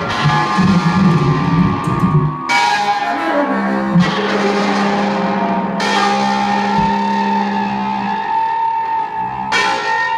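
Free-improvised music from a baritone saxophone, a guitar played flat on the lap and an electric keyboard: a busy low passage for about two seconds, then long held notes, with sharp new entries about every three to four seconds.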